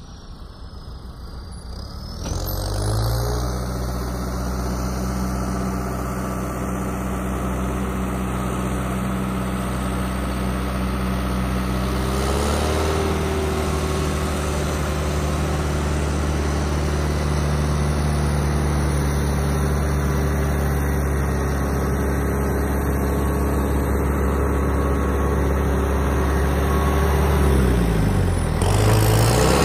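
A John Deere tractor's diesel engine runs at a steady speed while pulling a loaded trailer of bins. It starts in about two seconds in, and its note shifts and bends near the end as the tractor turns toward the camera.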